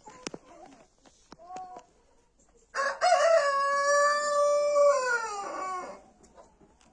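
A rooster crows once, a single long cock-a-doodle-doo of about three seconds that holds its pitch and then falls away at the end. A few softer chicken clucks and clicks come before it.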